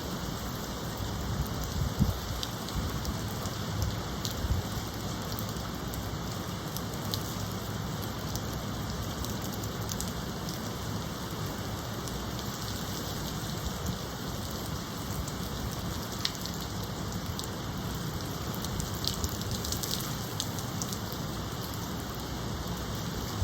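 Steady rain falling as heavy hurricane-weather rain, with scattered louder drops and a low wind rumble that is gustier in the first few seconds.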